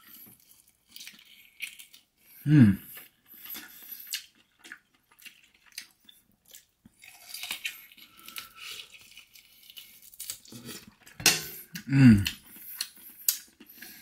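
A man eating barbecue ribs: chewing, and tearing meat from the bone, with small clicks and rustles. Twice, once a few seconds in and once near the end, he gives a short hummed 'mm' that falls in pitch.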